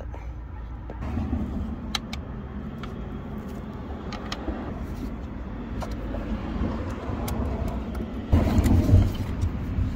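Hand screwdriver turning screws into the plastic hub of a garden hose reel, with scattered small clicks, over a steady low rumble. A louder thump and rumble of handling comes near the end.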